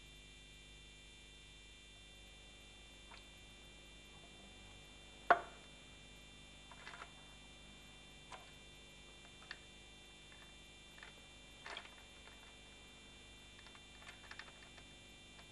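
Faint, scattered metallic clicks and clinks from the BMW M42 engine's timing chain and camshaft sprockets being handled and taken off, with one sharper knock about five seconds in and a small run of clicks near the end.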